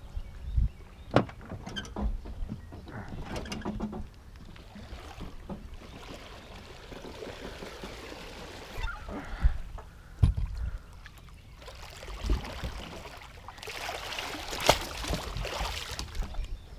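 A fish shot with a bowfishing arrow splashing and thrashing at the surface on the line, in two bouts of splashing, the second as it comes alongside the boat. Several sharp knocks on the aluminium boat stand out.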